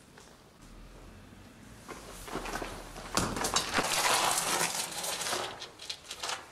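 Footsteps on a gravelly dirt floor: a few faint steps at first, then a louder burst of quick, scuffing steps for about two seconds past the middle.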